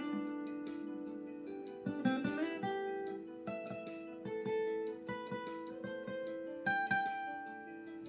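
Acoustic guitar played fingerstyle: a slow melody of plucked single notes ringing over sustained lower notes, with one note sliding upward about two seconds in.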